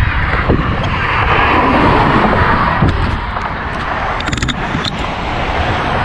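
Wind buffeting the microphone of a camera on a moving bicycle, over road and passing traffic noise that swells briefly about a second in. A few sharp clicks come near the end.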